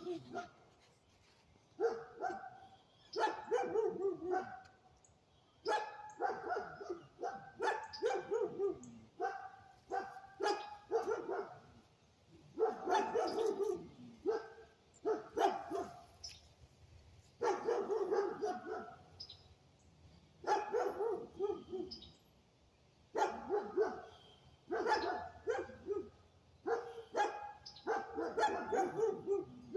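A dog barking over and over in bursts of several barks, with short pauses between the bursts.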